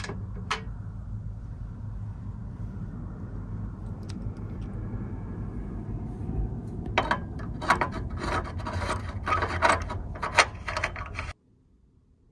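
Objects being handled and rubbed while gear is set up, scraping and rustling over a low steady hum, growing busier with many sharp clicks and scrapes for the last few seconds before cutting off suddenly.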